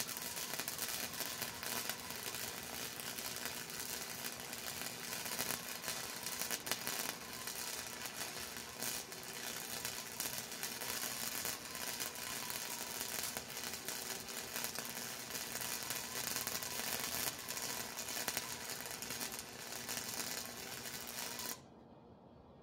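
Wire-feed welding arc crackling and sizzling steadily as a bead is laid on steel, then cutting off suddenly near the end.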